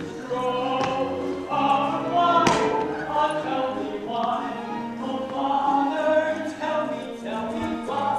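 Voices singing a musical-theatre number with accompaniment. A sharp thump comes about two and a half seconds in.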